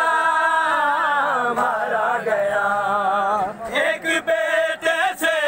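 A crowd of men chanting a noha, an Urdu lament, in unison. They hold one long drawn-out note for about three seconds, then move into shorter, choppier phrases of the refrain.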